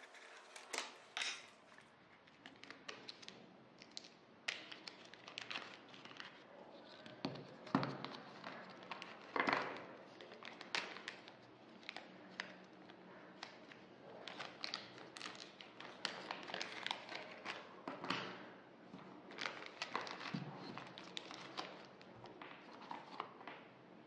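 Close handling of small packaging: a cardboard jewellery box opened and set down with light taps and a few thuds, and a clear zip-lock plastic bag crinkling as a bracelet is taken out of it.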